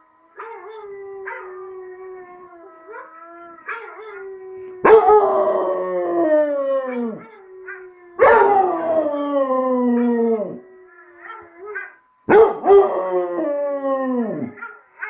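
Basset hound howling: a softer, steady moaning call first, then three loud howls a few seconds apart, each sliding down in pitch as it fades.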